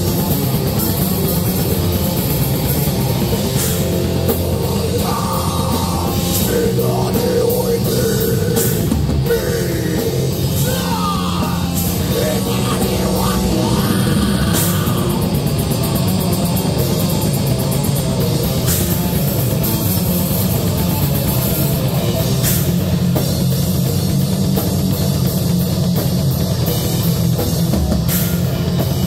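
A heavy metal band playing live: electric guitars, bass guitar and a drum kit, with a vocalist singing into a microphone.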